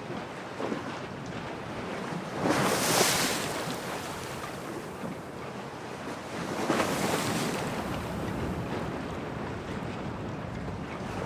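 Stormy harbour ambience: waves and wind, with wind buffeting the microphone. Two louder surges of surf come about two and a half and seven seconds in.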